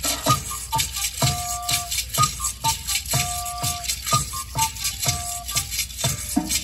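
Live band music: a native flute plays a melody of short notes and held notes over a steady drum beat of about two hits a second, with a shaker rattling throughout.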